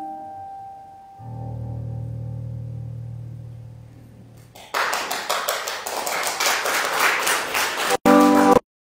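Instrumental offertory music: a chord fades, low notes are held for a few seconds, and then a louder, noisier passage with a quick pulse sets in about four and a half seconds in. The music drops out suddenly near the end, a brief loud chord follows, and then it cuts off.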